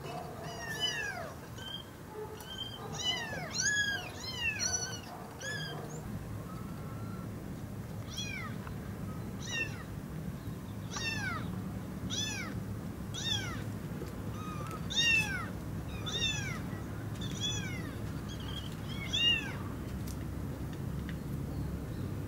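Meowing plush puppy toy playing recorded kitten meows: short, high-pitched, falling mews, bunched together at first and then repeating about once a second.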